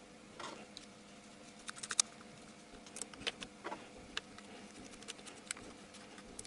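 Scattered faint clicks and taps of hands handling plastic parts and fittings on top of a car engine, irregular and a second or less apart, over a faint steady hum.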